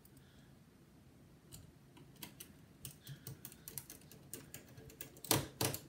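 Small scattered clicks and taps of a precision screwdriver turning the screws that hold a laptop battery in place, with two louder knocks near the end.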